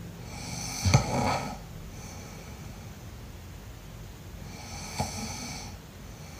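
A person snoring: two snores about four seconds apart, the first the louder, each with a sudden sharp catch in it.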